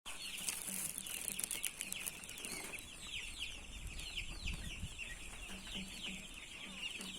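A flock of chickens calling, with many short, high, downward-sliding calls overlapping continuously.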